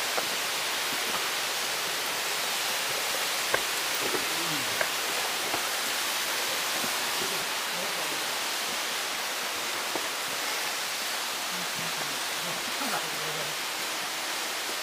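A steady rush of falling water, an even hiss with little low rumble. Faint distant voices come in twice, and there are a few light clicks.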